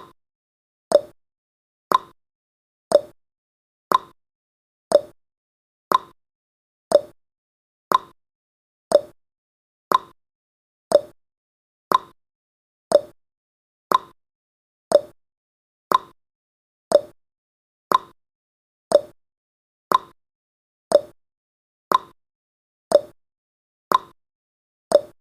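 Countdown timer's clock-tick sound effect: one short, sharp tick every second at a steady pace, about twenty-five in all.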